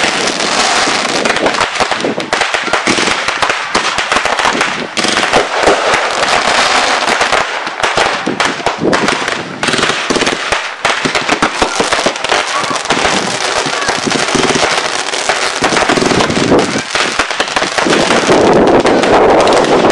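Fireworks display: many bangs and crackles in quick, irregular succession, with no break.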